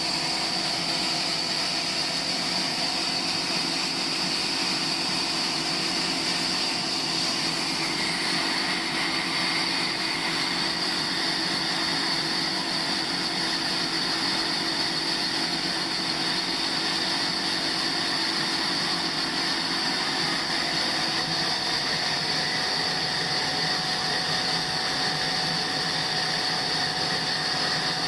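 Sawmill saw running steadily with a constant whine, the tone of the whine shifting about eight seconds in.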